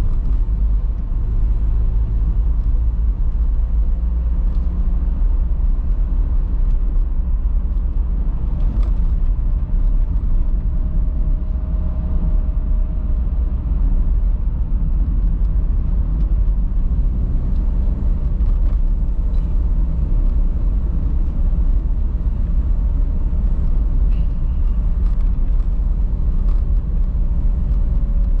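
Steady low rumble of road vehicle noise, heaviest in the bass, with no change in level.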